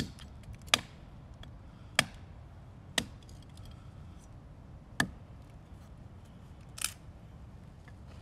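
Large bushcraft knife (Wenger Wolverine) chopping into a stick laid on a log: five sharp strikes at uneven intervals, then a lighter, crackling strike near the end.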